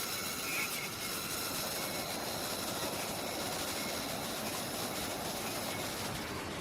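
Flowing creek water rushing steadily.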